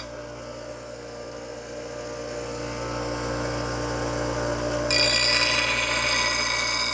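Angle grinder running freely for several seconds, then pressed back onto a steel mower blade about five seconds in, grinding with a loud, high ringing screech.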